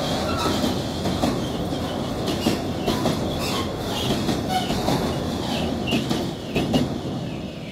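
Freight train of bogie tank wagons rolling past close by, a steady rumble with the wheels clicking and clattering over the rail joints. The sound begins to tail off near the end as the last wagons go by.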